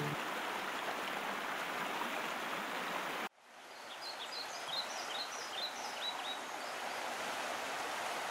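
Fast-flowing river water rushing over rapids, a steady even noise. A little over three seconds in it cuts off abruptly and fades back in as softer running water, with a bird giving a quick series of short, high, falling chirps.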